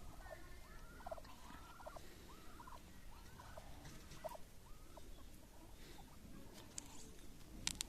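Faint calls of domestic fowl: a run of short, arched calls about two a second through the first few seconds, then a few sharp clicks near the end.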